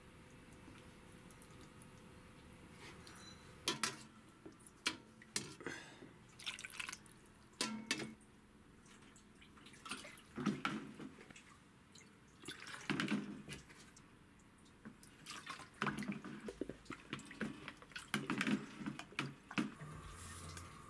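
Kitchen prep sounds: a knife clicks and scrapes on a cutting board while pickled plum is worked, then liquid is poured from a bottle into a bowl, splashing and dripping in several separate pours.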